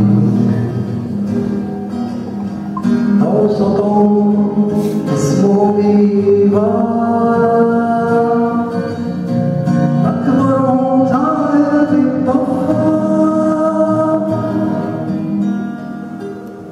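Acoustic guitar accompanying a singing voice in a slow song with long held notes.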